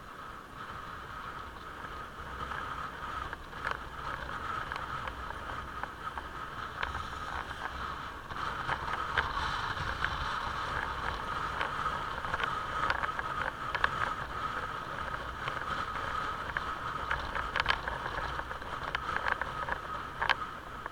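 Motorcycle riding along a road: the engine runs with a steady high hum over a low rumble, with scattered short knocks, and the sound grows louder about eight seconds in.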